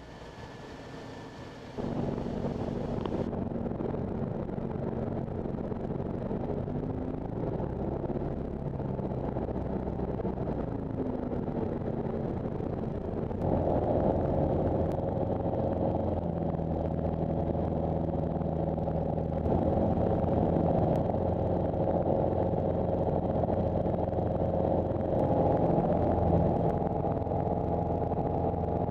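Single-engine light aircraft's piston engine and propeller droning steadily, heard from inside the cockpit. It steps up louder about two seconds in, and again about halfway through, where the tone shifts.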